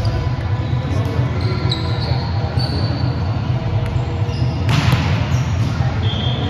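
Indoor volleyball rally: a few short high squeaks of sneakers on the court floor, then one sharp smack of the volleyball being struck about three-quarters of the way through, over a steady low rumble in the hall.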